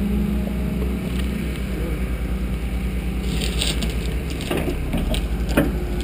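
Wheel loader's diesel engine running with a steady low drone; about three seconds in, wooden boards crackle, snap and splinter as its bucket pushes into the old barn wall, with a few sharper knocks.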